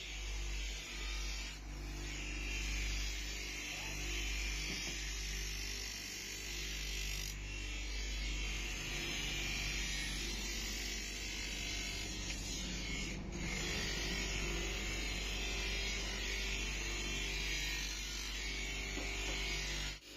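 Small electric power tool running steadily with an abrasive hiss, as the old kukri blade is worked during restoration; the hiss briefly drops about 2, 7 and 13 seconds in.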